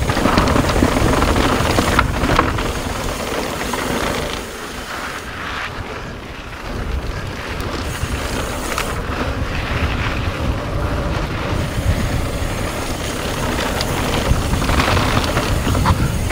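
Wind rushing over the microphone of a camera mounted on a full-suspension mountain bike descending a dirt trail, with tyre rumble on the dirt and the occasional knock and rattle of the bike over bumps.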